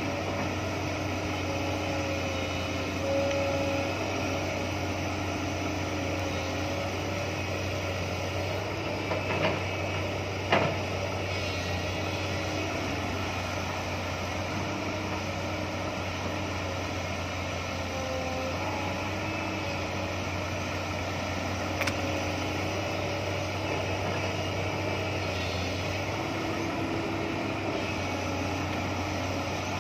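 JCB tracked excavator's diesel engine running steadily under load as it digs and loads soil, with a hydraulic whine that shifts in pitch as the arm works. A few sharp knocks stand out, twice about ten seconds in and once past the middle.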